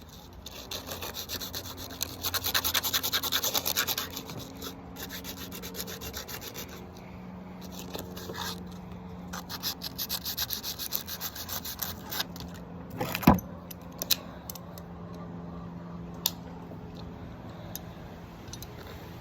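Metal being worked by hand with quick back-and-forth rasping strokes, heaviest early on and again in a shorter spell later, over a faint steady hum. One loud sharp knock comes about two-thirds of the way in, followed by a few lighter clicks.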